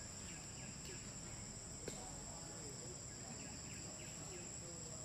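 Insects buzzing in a steady high-pitched drone, with a single sharp click about two seconds in.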